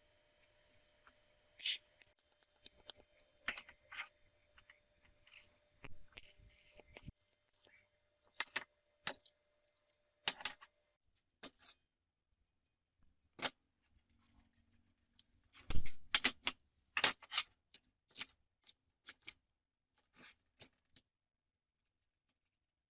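Metal parts clinking, tapping and knocking against each other as they are handled, in irregular single clicks with a heavier knock about two-thirds of the way through.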